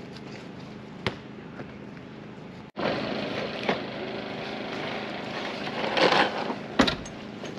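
Wood campfire burning, crackling steadily with scattered sharp pops, the loudest near the end; it starts abruptly about three seconds in, after a quieter stretch with a single knock.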